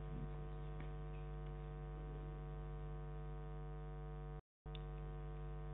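Steady electrical mains hum in the sound system. It cuts out completely for a moment about four and a half seconds in.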